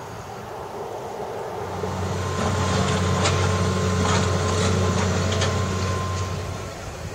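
Heavy vehicle's engine running with a low steady drone that swells up about two seconds in and fades near the end, with a few sharp clanks in the middle.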